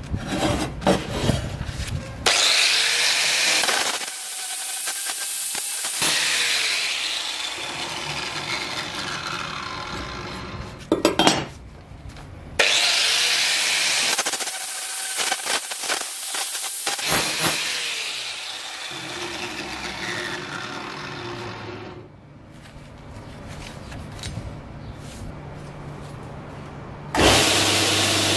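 Angle grinder with a sanding disc grinding a steel axe-head blank on a wooden bench, a loud high grinding hiss that comes and goes as the disc works the metal. It opens with the clatter of the blank being handled on the bench. Near the end a belt grinder starts running.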